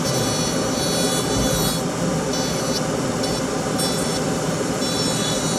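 A dental lab machine running with a loud, steady hiss and thin high whining tones that come and go.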